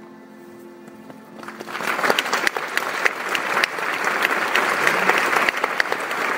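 The last held note of the song ends, and audience applause breaks out about a second and a half in, loud and steady.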